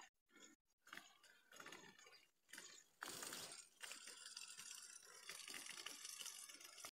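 Near silence: faint crackling, rustling noise with a few brief dropouts in the first second, a little louder from about three seconds in.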